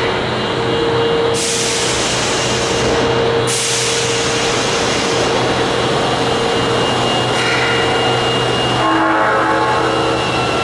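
Osaka Metro Chuo Line subway train running at the station platform: a steady rumble and hum, with a loud hiss of air from about one and a half to three and a half seconds in.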